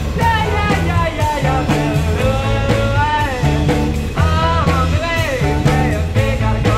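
Rock music with a singing voice over a steady beat.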